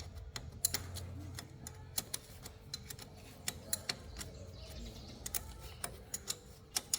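A run of sharp, irregular clicks and light taps over a low hum.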